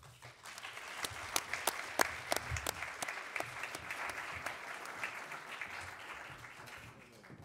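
Audience applauding. The clapping builds over the first second and dies away near the end.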